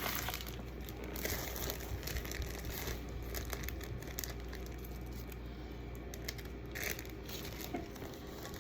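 Plastic bags and wrappers crinkling and rustling as they are handled, in irregular bursts.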